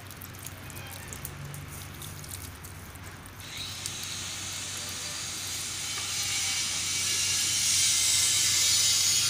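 Water poured from a plastic mug onto the soil and stones of a freshly repotted bougainvillea bonsai in a plastic pot, splashing and trickling: the first thorough watering after repotting. The pour gets much louder a little over a third of the way in and stays loud as water pools on the surface.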